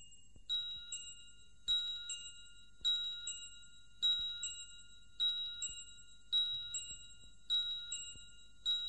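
Bell-like chimes ringing the same high chord over and over in a steady pattern: a louder strike followed by a softer one about half a second later, repeating roughly every second and a quarter, each note ringing on briefly.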